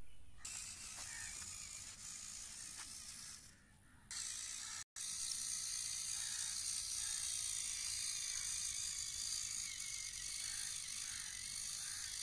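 Small electric gear motors of a homemade model tractor running under the load of a filled trailer: a steady high whine with gear clatter. The sound drops out briefly twice, about four and five seconds in.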